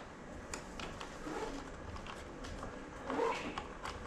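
Scattered light clicks and knocks from hands handling a small toy RC car, with a short pitched sound a little past three seconds in.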